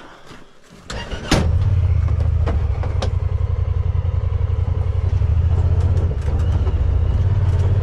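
Side-by-side UTV engine starting about a second in, then running at a steady idle with a low, fast-pulsing rumble.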